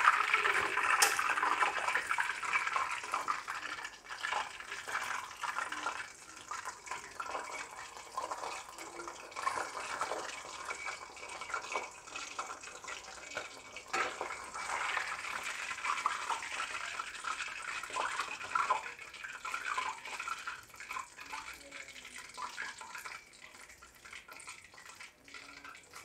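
Chicken pieces deep-frying in hot oil in a wok: a crackling sizzle, loudest in the first few seconds and fading as it goes on. Scattered sharp clicks and scrapes come from a metal slotted spoon against the wok as the pieces are lifted out.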